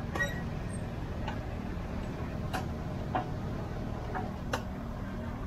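About six sharp knocks or taps at uneven intervals, the loudest near the start, just past three seconds and about four and a half seconds in, over a steady low background hum.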